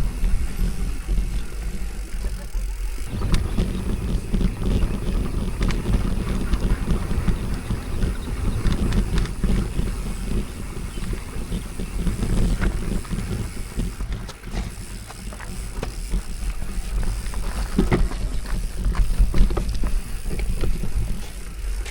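Mountain bike riding over a rough trail: tyre noise with scattered rattles and knocks from the bike, over a steady low wind rumble on the microphone.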